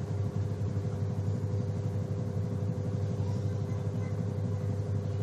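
Samsung WA80U3 washing machine running its spin cycle: the spin motor hums steadily, with a constant low drone and two steady higher tones. The machine is running on a replacement universal control module.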